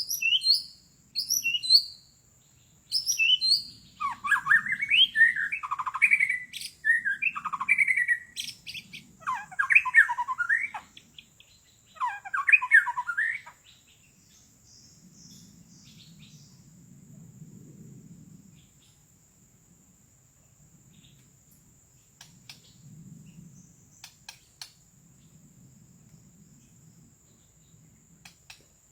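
White-rumped shama (murai batu) decoy singing to call in wild birds: a few high falling whistles, then loud rich warbling phrases for about ten seconds, before it falls quiet. A thin steady high whine runs underneath.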